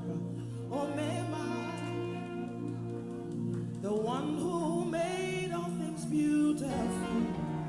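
Live gospel worship music: a voice sings wandering, ornamented runs over sustained chords, entering about a second in and again around four seconds.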